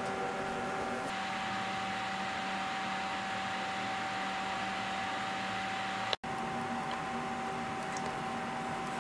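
Steady mechanical hum and hiss with a constant whine, cutting out for an instant about six seconds in.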